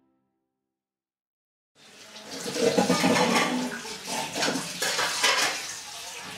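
Silence, then about two seconds in a kitchen tap starts running into a sink as dishes are washed under it, with clinks and knocks of the dishes.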